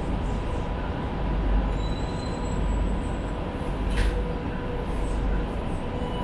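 Metro train car's interior noise as the train runs: a steady low rumble from the wheels and track, with a constant electrical hum and a single click about four seconds in.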